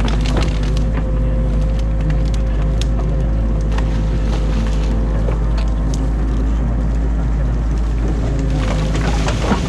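Excavator's diesel engine running steadily, heard from inside the cab, with scattered sharp cracks and snaps of dam branches being torn out by the bucket; one louder crack near the end.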